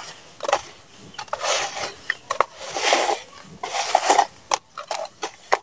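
Damp sand squeezed and crumbled by hand in a plastic tub: gritty, crunchy crumbling in several bursts about a second apart, with small crackles between them.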